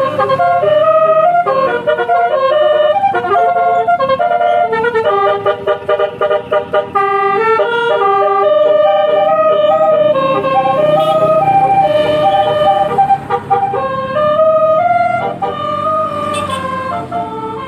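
Telolet basuri horn, a multi-tone air horn on a vehicle, playing a tune of held notes that step up and down in pitch, with a quick run of short staccato notes about five seconds in.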